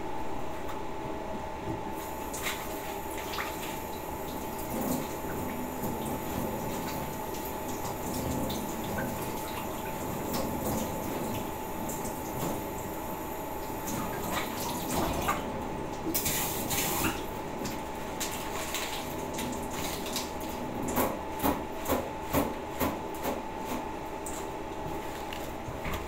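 Kitchen tap running, starting about two seconds in, as leafy vegetables are rinsed under it, with the water splashing on the leaves. Late on there is a short run of light knocks.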